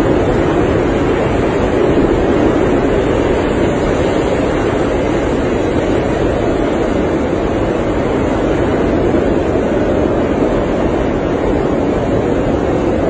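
Blizzard wind blowing steadily, a dense rushing noise with slow, gentle swells.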